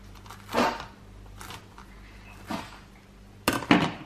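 Kitchen knife cutting through a crispy breaded chicken goujon onto a plastic chopping board: a short crunch about half a second in, a couple of lighter knocks, then a quick cluster of louder knocks on the board near the end.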